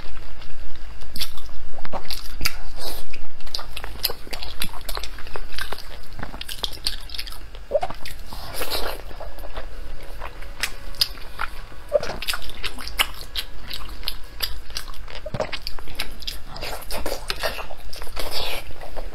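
Close-miked chewing of soft, gelatinous pork skin rolls in chili sauce: steady wet smacking and sticky clicking mouth sounds.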